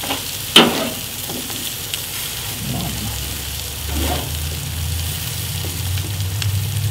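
Potato pieces frying on a gas grill's griddle plate, sizzling steadily, as a metal spatula scrapes and turns them, with a sharp metal clack about half a second in.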